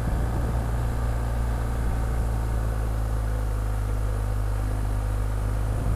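BMW R1250 GS Adventure's boxer-twin engine running steadily while riding on a gravel road, mixed with a steady rush of road and wind noise.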